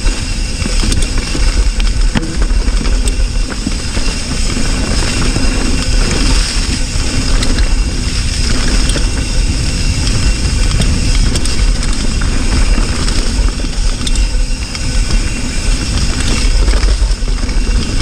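Wind buffeting a GoPro's microphone and the tyres of a hardtail mountain bike rolling fast over a dirt and rock trail on a descent: a steady, loud low rumble with tyre noise and scattered clicks and rattles from the bike.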